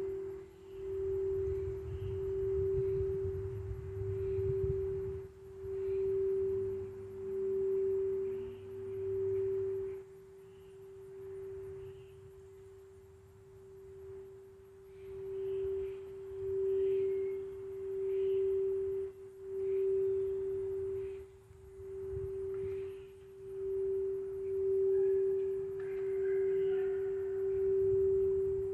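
Quartz crystal singing bowl sounding one sustained pure tone that swells and fades about once a second as it is sung. It grows quieter about a third of the way through, then builds back up.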